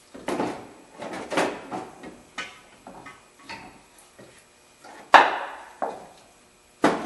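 Front strut assembly, coil spring and top mount attached, clunking and scraping against the wheel well and suspension parts as it is worked out by hand: a series of irregular knocks, the loudest about five seconds in.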